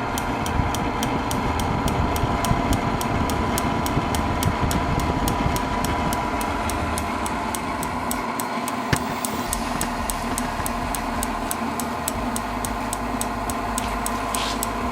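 Propane forced-air heater running with its fan slowed on a dimmer and the gas turned low: a steady fan-and-burner hum with a tone in it. The piezo igniter clicks over it about four times a second, sparking continuously.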